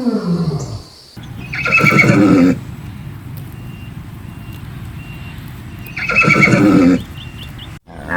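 Horse whinnying twice, each call a little over a second long with a wavering pitch, about four seconds apart.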